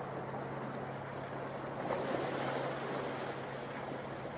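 Steady rush of sea surf and wind, swelling a little about halfway through, with a low steady hum underneath.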